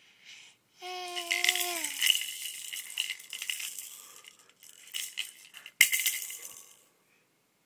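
A baby's short, high voiced squeal about a second in. Then a toy rattle is shaken in uneven bursts for several seconds, with a sharp clack near six seconds.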